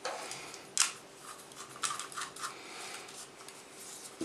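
Handling noise from a Zoom H2 handheld recorder's plastic body and foam windscreen as the windscreen is pushed over its microphones: a sharp click about a second in, then a few more clicks and rubbing.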